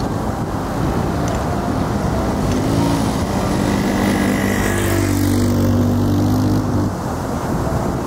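Dirt bike engine running as it rides closer across the sand, its note coming up about two and a half seconds in, loudest midway, and dropping away about seven seconds in. Wind on the microphone throughout.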